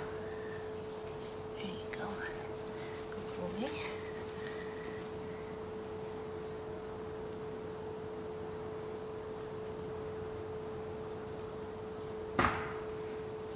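An insect chirping: a short, high note repeated evenly about three times a second, over a steady low hum. A single sharp knock sounds near the end.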